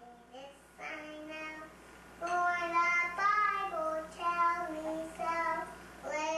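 A child singing a slow melody in held notes.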